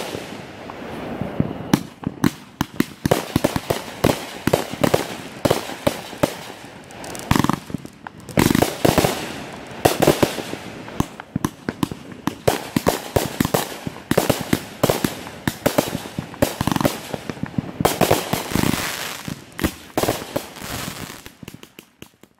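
Phantom 'God of Fire X2' 500 gram fan cake firing a rapid, dense string of shots and bursts, coming in louder waves. It dies away near the end as the cake finishes.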